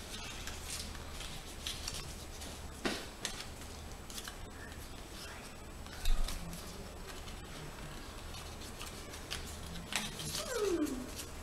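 Handmade paper greeting card being flipped open and folded by hand: light paper rustles and small clicks, with a low thump about six seconds in.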